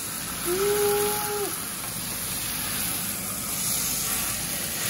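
Beef brisket sizzling as it sears in hot olive oil in a metal roasting tray, a steady hiss. About half a second in, a short steady tone sounds for about a second.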